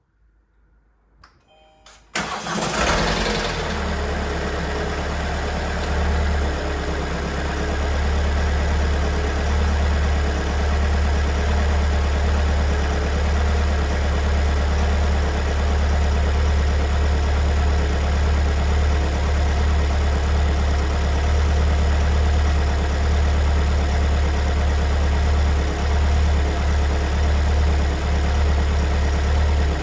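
Kia Sorento 2.2 diesel (MQ4, 2022) four-cylinder engine cold-starting: a brief crank about two seconds in, catching at once, then a steady diesel idle. The owner does not think this cold start is normal.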